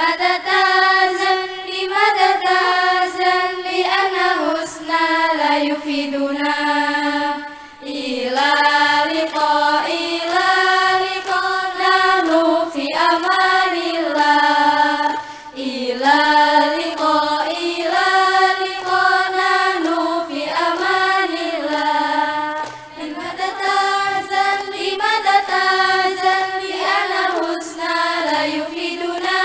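A choir of young women singing a melody together in unison in Arabic, with short breaks between phrases.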